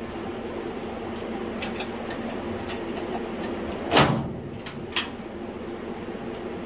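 A heavy metal clunk about four seconds in, then a sharper metal click a second later, over a steady background hum: the snowblower's steel mounting hitch knocking against the garden tractor's frame as the unit is pushed into place.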